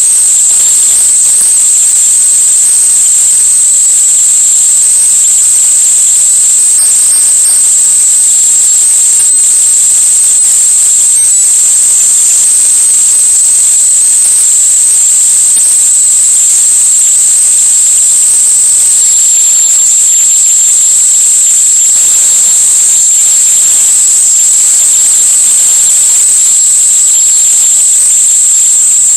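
A loud, steady, high-pitched whine over a faint hiss, dropping slightly in pitch about 19 seconds in.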